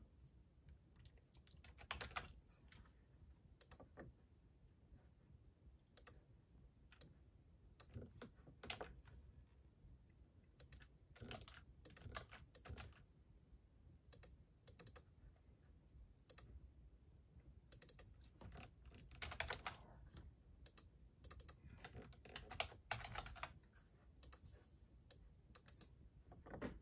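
Typing on a computer keyboard: irregular key clicks in short runs with pauses between.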